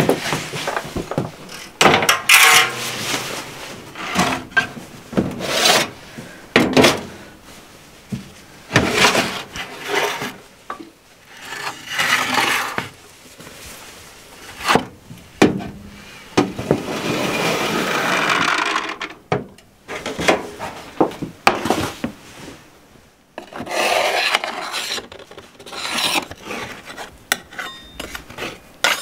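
A metal spatula scraping along the inside edge of a metal baking tray to loosen a baked chocolate sponge, with the tray itself rubbed and shifted. It is a run of irregular scrapes, one of them long and steady about two-thirds of the way through, with a few light metallic clinks near the end.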